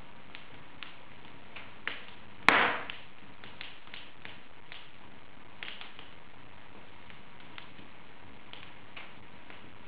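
Wood fire in an open fireplace crackling: a steady hiss with scattered small crackles, and one sharp, loud pop about two and a half seconds in.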